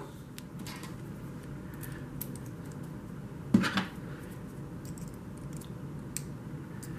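Faint metallic clicking and scraping of lock picks working in a vintage Master Lock, with a louder couple of clicks about three and a half seconds in.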